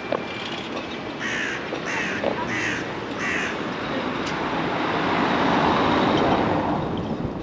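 A crow cawing four times in quick, even succession over a steady outdoor background, followed by a broad rush of noise that swells and fades.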